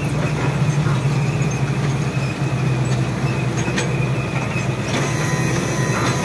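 Tractor engine running steadily while pulling a seed drill, heard from inside the cab, with light clicks and rattles from the hitch and drill; one sharp click stands out about four seconds in.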